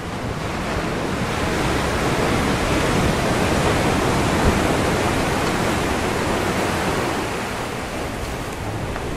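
Ocean surf: a wave breaking and washing in, its rush swelling over the first couple of seconds, peaking midway and ebbing away toward the end.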